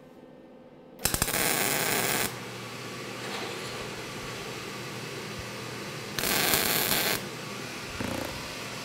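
Two tack welds made with a MIG (GMAW) gun on a butt joint, using solid wire and argon-CO2 shielding gas: the arc crackles for about a second, once a second in and again about six seconds in.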